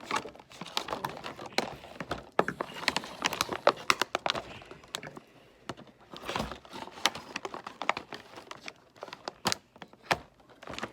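Stiff plastic packaging being cut and wrenched open to free a small tackle box: a rapid, irregular run of sharp clicks, cracks and crinkling.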